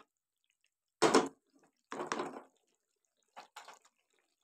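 A few short, separate sounds from a pan of chicken curry on a gas stove, the strongest about a second in, with silence between them.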